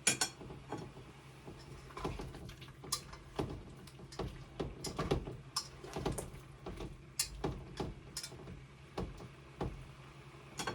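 Cookware clatter while stir-frying: irregular knocks and clinks of a utensil against a pan, over a steady low hum.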